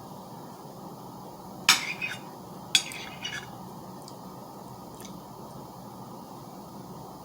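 Mukbang eating sounds of strawberries with whipped cream: a few short sharp clicks and knocks, loudest about two and three seconds in, over a steady low hiss.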